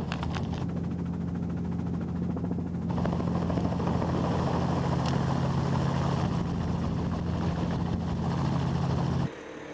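Helicopter in low flight heard from inside its open cabin: a steady rotor and engine hum, with a louder rushing noise joining about three seconds in. It cuts off suddenly near the end.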